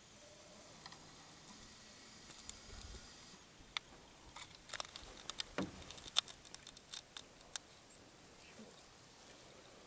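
A quick irregular run of small, sharp clicks and ticks, a dozen or more over about four seconds starting near the middle, with one duller knock among them, over faint outdoor hiss. It is handling noise as the camera is swung around.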